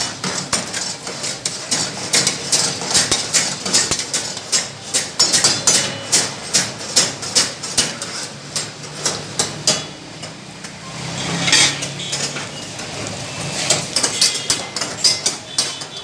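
Metal ladles and spatulas clanking and scraping against karahi woks while chunks of lamb are stir-fried: a quick, uneven run of sharp metallic strikes, a few each second.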